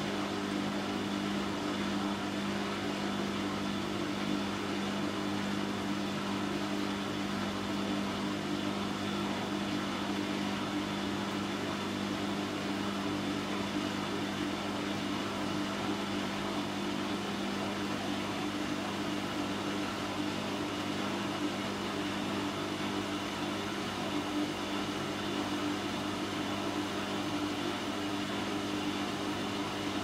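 Bosch Maxx 5 front-loading washing machine running, its drum turning the wet laundry with a steady motor hum and the swish of the load.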